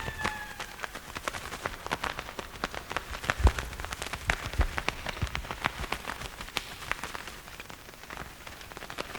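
Rain-like sound effect: a steady patter of irregular taps and crackles, with a few low thuds around the middle.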